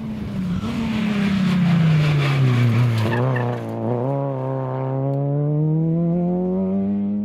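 Rally car engine running hard toward and through a corner. The engine note drops and wobbles as the car brakes and shifts down, with tyres scrabbling through loose dirt on the inside verge. The pitch then rises steadily as the car accelerates away.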